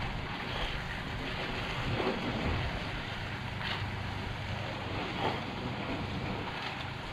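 Steady hiss of a soft-wash gun spraying water at low pressure, with a low steady hum underneath.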